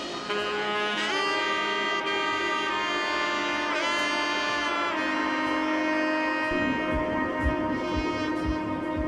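Background music: a sustained melodic lead with smooth pitch bends, joined by a low steady beat about two-thirds of the way in.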